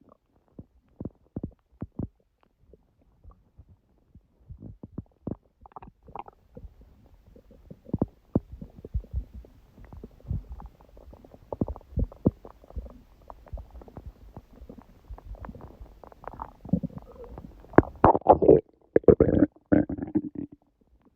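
Human stomach growling and gurgling: scattered faint clicks and bubbles at first, growing denser from about four seconds in, with the loudest growls near the end. The uploader puts it down to a large udon meal, her first gluten in a long while.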